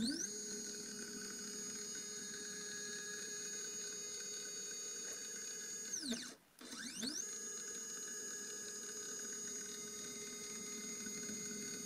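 Sainsmart 3018 PROVer CNC's X-axis stepper motor driving the spindle carriage along its lead screw in two jog moves. Each move's whine rises in pitch as it speeds up, then holds steady. The first slows with a falling whine and stops about six seconds in, and the second starts a moment later.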